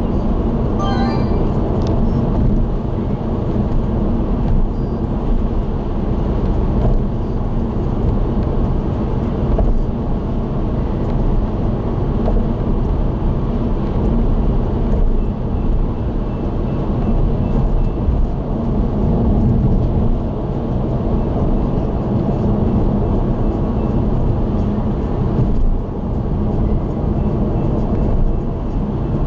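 Steady road noise of a car cruising on an expressway, heard from inside the cabin: tyre and engine drone, strongest in the low range, with a faint steady hum.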